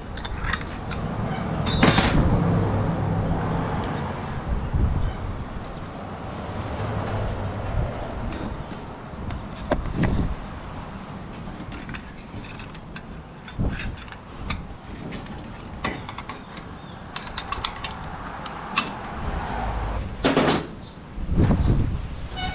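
Metal clicks and knocks from steel parts being handled as a snatch block is taken apart and then fitted onto a steel winch cable. The loudest knock comes about two seconds in and is followed by a low steady hum for several seconds.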